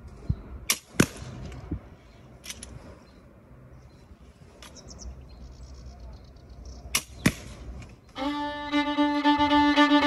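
Compound bow with a repeating steel-ball magazine launcher being shot: sharp snaps of the bowstring releasing, the loudest in two close pairs about a second in and about seven seconds in, with fainter clicks between. Fiddle music comes in about eight seconds in.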